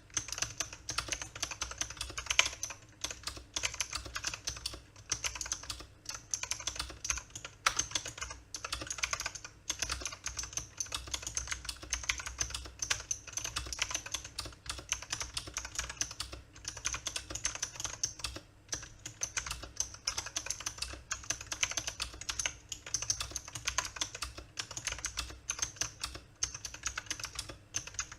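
Fast continuous typing on a mechanical keyboard with clicky blue switches (Cherry MX Blue clones): a dense stream of sharp key clicks with short pauses now and then.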